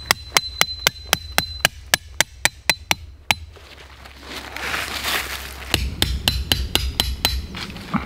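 A metal-headed peg hammer driving a tent stake into forest soil: a run of rapid blows, about four a second, each with a high metallic ring. After a short pause a second, quicker run of blows follows.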